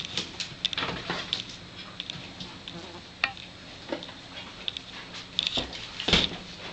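A horse's hooves shifting on the barn floor: a few scattered knocks and clicks, the loudest a heavy thud about six seconds in.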